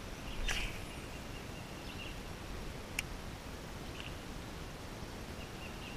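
Quiet open-air ambience over water, with three sharp clicks at even intervals and a few faint high bird chirps.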